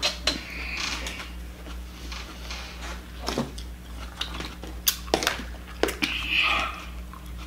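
Scattered sharp clicks and clacks of cooked lobster shell and an eating utensil being handled at a table, a handful of separate strikes over a few seconds, over a steady low hum.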